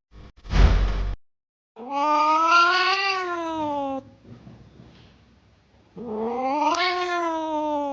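A domestic cat yowling: two long, drawn-out calls of about two seconds each, pitch rising and then falling. A brief noisy rustle or thump comes just before the first call.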